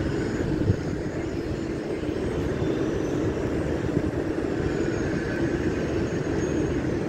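Steady low rumble of a railway station, with a brief knock under a second in.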